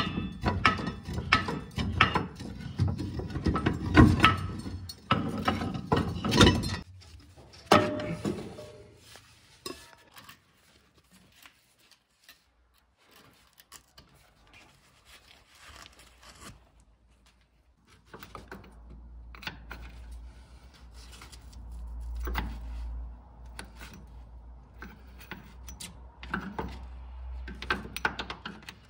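Metal clinks, knocks and rubbing from tools and shock-absorber parts being handled, busiest in the first several seconds and sparser later. A low hum comes in about two-thirds of the way through.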